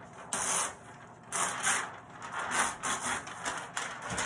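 A large sheet of chart paper is lifted and flipped over the top of an easel pad, rustling and crinkling. There is a short rustle first, then a longer uneven run of rustling.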